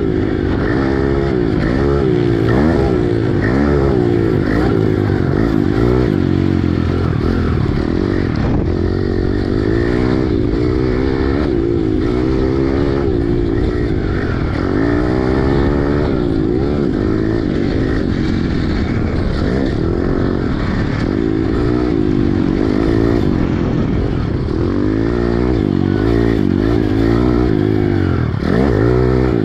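Pit bike engine heard from on board, revving up and dropping back again and again, about every one to two seconds, as it is ridden hard around a dirt motocross track.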